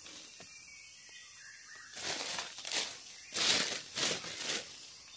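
Dry leaves and brush rustling in about five quick swishes, starting about two seconds in.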